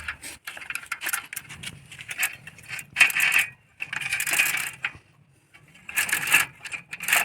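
Bicycle chain links clinking and rattling with sharp metallic clicks as the broken chain is handled and joined with a chain lock (master link), in several jingling bursts.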